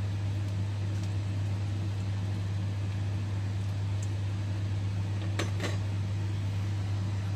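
A steady low mechanical hum, with a metal ladle clinking twice against an enamelled cast-iron pot of cabbage and broth about five and a half seconds in.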